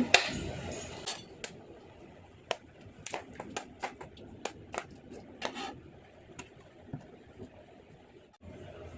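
Metal cookware on the stove giving a sharp click, then light, irregular ticks and taps, one or two a second, while mustard oil is poured into a kadai.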